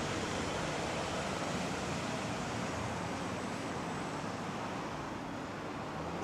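Steady rushing street noise with a low rumble, like distant traffic and wind on a phone microphone, easing slightly toward the end.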